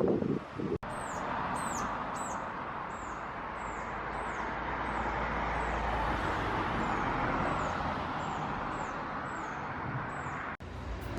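A bird repeating short, very high chirps that fall in pitch, about two a second, over a steady rushing background noise. The sound starts abruptly about a second in and cuts off near the end.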